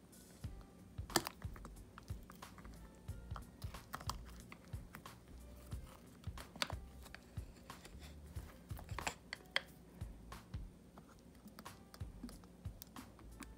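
Irregular clicks and scrapes of a metal screwdriver tip picking and scraping dried glue from the glass rim of an opened snow globe.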